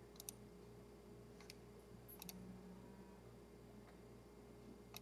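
Near silence: room tone with a steady faint hum and a few faint, sharp clicks.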